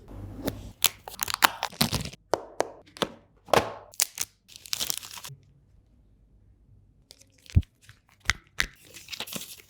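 Unboxing handling noises from a smartphone's retail box and packaging: sharp clicks and taps mixed with tearing and crinkling. These stop for about two seconds past the middle, then a few more clicks follow.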